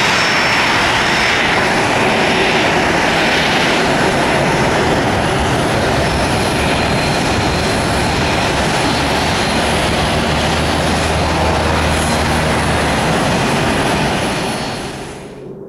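Boeing 737 Classic's CFM56 jet engines running at taxi power as the airliner taxis past: a steady rush of jet noise with a high, thin whine over it. The sound cuts away sharply near the end.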